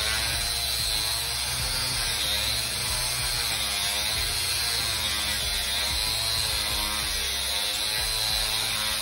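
Electric drill on a drilling jig boring into a granite slab: the motor runs steadily under load while the bit grinds against the stone, its pitch wavering slightly.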